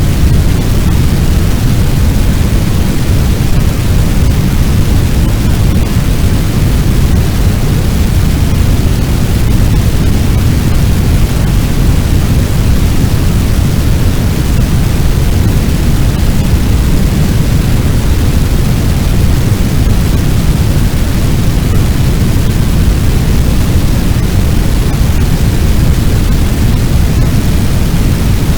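Fire sound effect: a steady, deep rumble of noise like a large blaze burning, with no distinct crackles or pops standing out.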